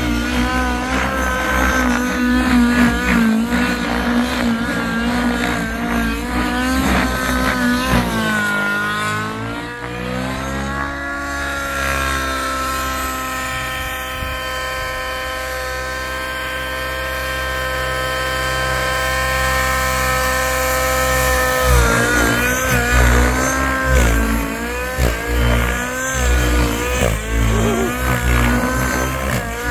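Nitro RC helicopter (XL Power Specter V2) with an OS 105 two-stroke glow engine fitted with a dual glow plug head, running on 20% nitro and flying hard aerobatics. The engine and rotor pitch waver constantly as the blades load and unload, dip and climb about eight seconds in, hold a steady tone for about ten seconds, then waver again.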